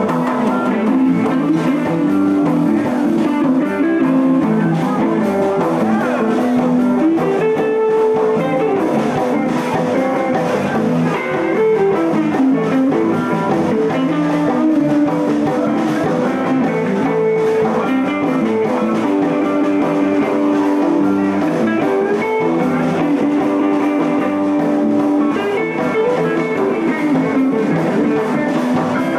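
Live blues band playing, with a lead guitar solo over bass guitar and drum kit, heard as room sound.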